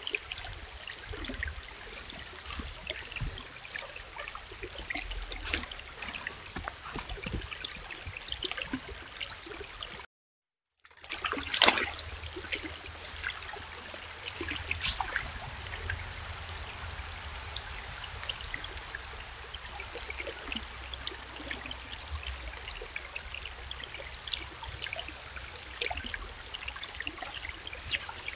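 Shallow stream trickling and babbling over rocks, steady throughout. The sound cuts out for about a second a third of the way in, and a brief louder noise comes just after it returns.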